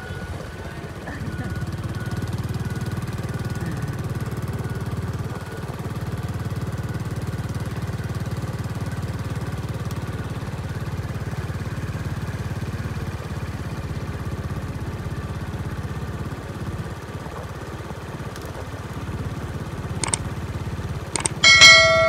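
Steady low rumble of a vehicle driving along a smooth asphalt road, engine and tyre noise together. Near the end come two clicks and then a loud ringing chime, the sound effect of an on-screen subscribe-button animation.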